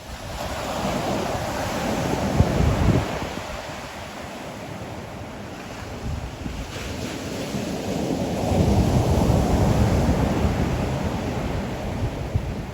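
Ocean waves breaking and washing up the shore: one surge rises about a second in and fades, then a longer, louder one builds past the middle. Wind buffets the microphone with a low rumble.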